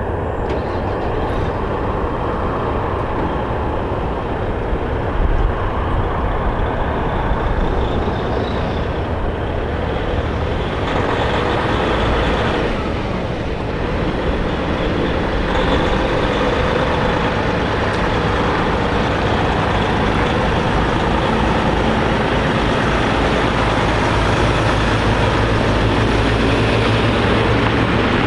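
Boeing 767-300ER's twin General Electric CF6-80 turbofan engines at takeoff power, a loud continuous rumble that grows gradually louder.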